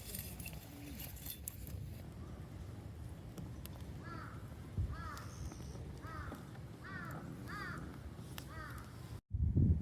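A crow cawing about seven times in a row, starting about four seconds in, over a steady low rumble. The sound cuts out abruptly just before the end.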